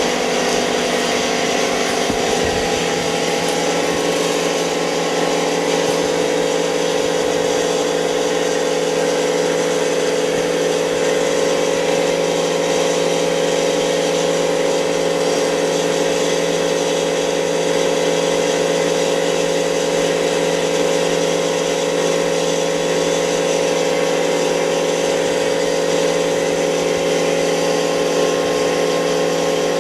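Steady machine hum: a constant drone of several held tones over an even hiss, unchanging throughout.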